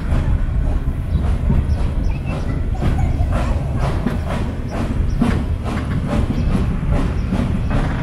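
Molli narrow-gauge steam train running, heard from aboard its carriage: a steady low rumble of wheels on rail with a rhythmic beat about three times a second that sets in a couple of seconds in.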